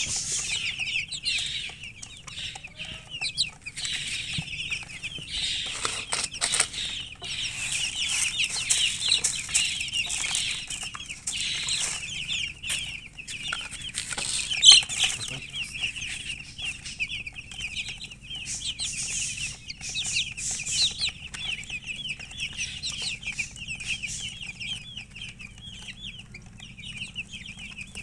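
A group of chicks peeping continuously in many short, high chirps that overlap. There are a few scuffling clicks about six seconds in, and one louder call about halfway through.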